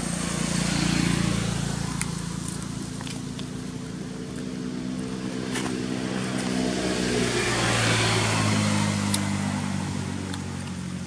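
A motor vehicle's engine running steadily, its hum swelling about a second in and again around eight seconds, as traffic passes by; a few faint clicks sound over it.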